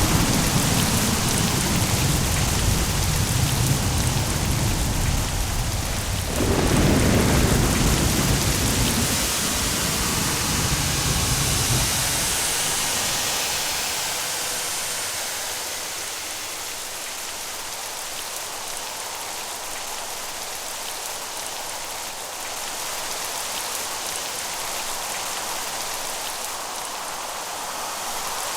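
Steady heavy rain with rolling thunder: a deep rumble that swells sharply about six seconds in, then dies away by about halfway, leaving the rain hiss alone.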